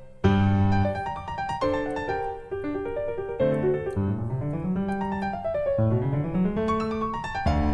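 Piano music: single notes and chords struck in quick succession, with rising runs of notes about midway and again near the end.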